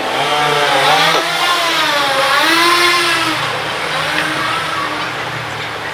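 Car engine revving, its pitch rising and falling in about three swells as the car is shunted back and forth into a tight parallel-parking space.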